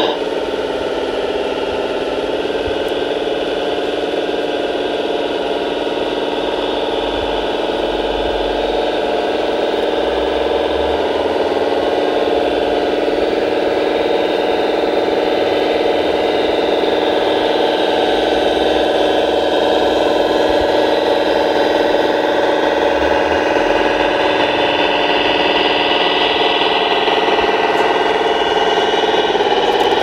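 Scale RC Bobcat T770 compact track loader model running: a steady engine drone, with a fainter whine rising and falling through the middle stretch.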